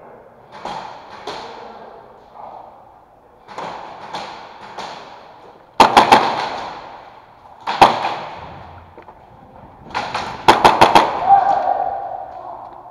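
Airsoft gunfire: sharp cracks that ring out in the big hall. Fainter shots come in the first five seconds, then a quick volley of about three about six seconds in, a single loud shot about two seconds later, and a fast string of about five near the end.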